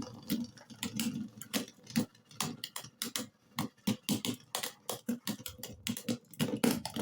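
3D-printed Beyblade spinning tops clashing in a Beyblade stadium: a rapid, irregular run of sharp plastic clacks and clicks as they collide and bounce off the walls.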